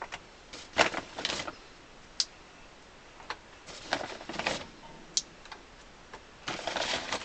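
Small clamps being handled and fitted along a glued celluloid edge: a series of irregular clicks, taps and small knocks.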